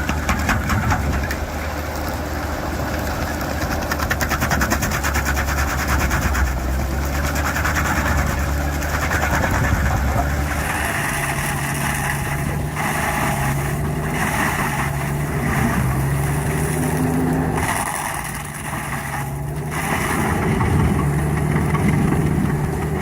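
Engine of a stump-grinding machine running with a fast, steady rhythm. About ten seconds in, the sound changes to a different engine note that shifts in pitch, with a few brief dips.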